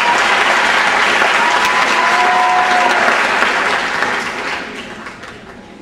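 Audience applauding, the clapping steady at first and then dying away over the last second or two.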